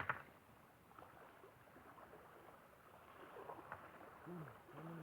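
Faint lapping of small lake waves at the shore, with a short knock at the start and a low voice sounding near the end.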